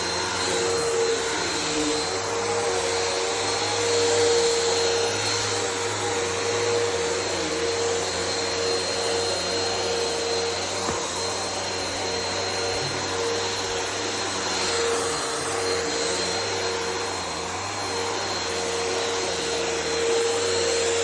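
Bissell vacuum cleaner running steadily, its motor giving a constant whine over the rush of air, swelling and easing a little as it is pushed back and forth.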